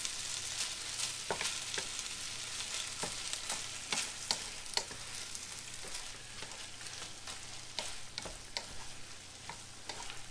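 Chicken and vegetables in teriyaki sauce sizzling in a frying pan as they are stirred, with a spatula clicking and scraping against the pan at irregular intervals.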